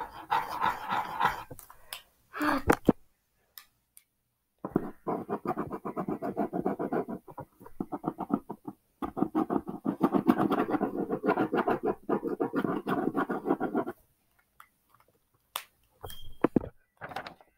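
Drawing tool scratching back and forth on paper as a picture is coloured in, in long runs of quick strokes with brief pauses.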